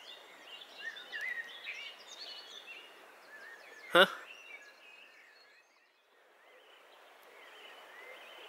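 Songbirds singing over the steady rush of the River Wye flowing below, with one sharp click about four seconds in. The water noise drops away briefly just after, then returns.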